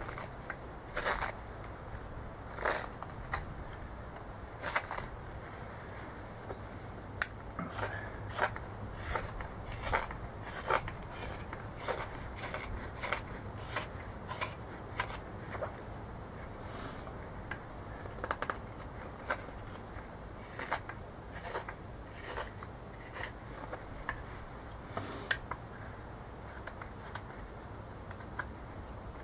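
Hook knife scooping shavings out of the bowl of a green cherry plum spoon, a series of short slicing cuts at about one or two a second.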